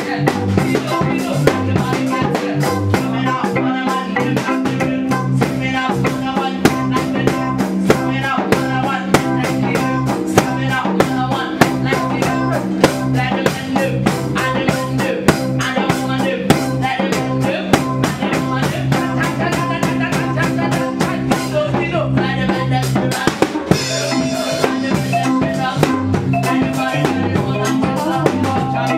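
Live band playing with drum kit, bass and electric guitar, a woman singing into a microphone over a steady beat.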